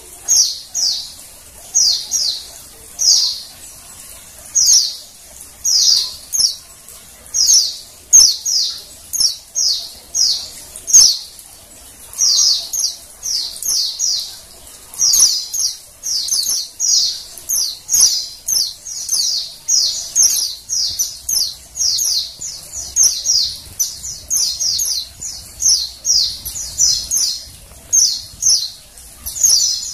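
Female white-eye (pleci) calling: short, high chirps, each a quick run of falling notes, repeated about once or twice a second without a break.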